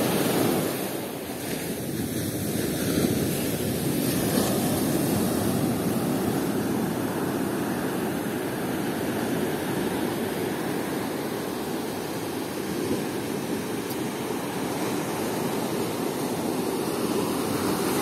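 Sea surf breaking and washing up a sandy beach: a steady rush of waves.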